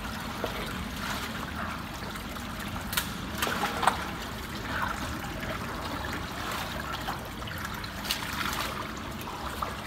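Water trickling and sloshing at the mouth of a culvert clogged with beaver-packed mud and sticks, as a hand digs through the blockage underwater. A few louder splashes and knocks come about three to four seconds in and again about eight seconds in.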